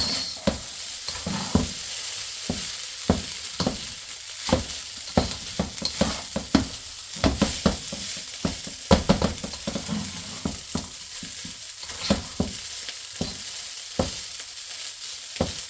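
Beef fried rice sizzling in a hot kawali (wok-style pan) as it is stir-fried, with a steady hiss and frequent irregular knocks and scrapes of the stirring utensil against the pan.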